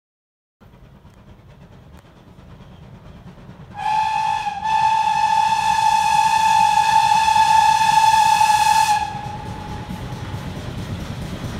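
Manor-class steam locomotive's whistle: a short toot, then a long steady blast of about four and a half seconds, over the low rumble of the approaching train.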